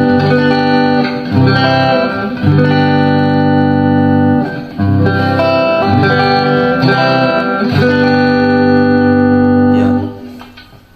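Electric guitar on its neck pickup, played clean through an amp speaker: strummed chords restruck about five times and left to ring, fading out near the end.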